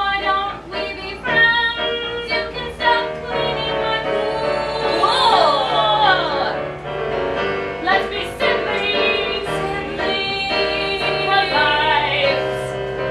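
Singing over instrumental music, with held melodic notes above a sustained low accompaniment.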